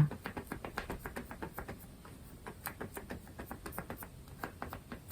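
Rapid, irregular light taps and scratches of a painting tool working paint onto paper, several a second.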